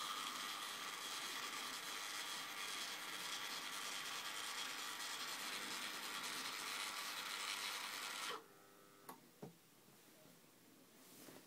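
Yaesu G-450C antenna rotator's motor and gearbox running with a steady whir while the rotator turns, cutting off abruptly about eight seconds in when the control button is let go. Two light clicks follow about a second later.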